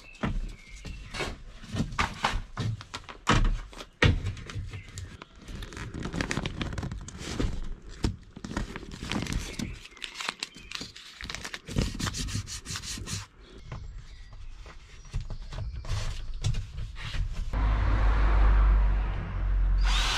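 Pine tongue-and-groove ceiling panels rubbing and knocking as they are pushed into place overhead. Near the end a cordless drill runs steadily against the ceiling, the loudest sound.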